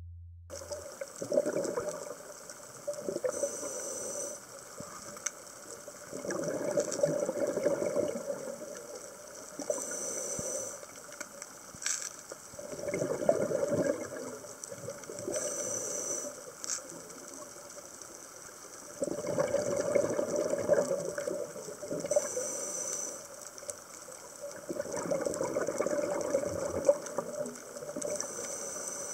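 Scuba diver breathing through a regulator underwater, about every six seconds: a short high hiss on each inhale, then a longer bubbling gush of exhaled air. A couple of sharp clicks come in between.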